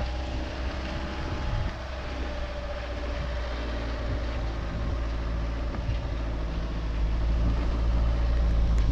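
Dacia Duster driving slowly over bumpy grass pasture: its engine running at low speed under a heavy low rumble from the car and tyres on the rough ground, getting louder near the end.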